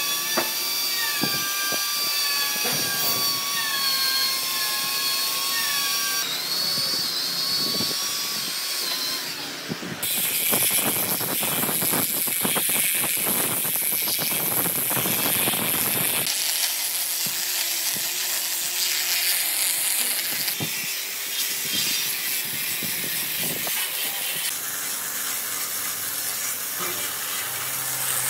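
Power tools working wood, with a steady motor whine, scraping and frequent clicks and knocks. The sound changes abruptly every few seconds, as separate short shots are joined together.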